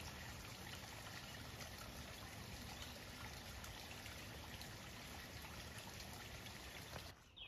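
Water trickling steadily down a wet rock face, a soft even hiss that cuts off shortly before the end.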